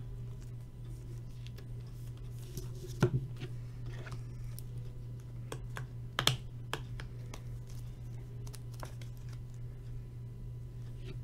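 A few scattered light clicks and taps on a desk over a steady low electrical hum.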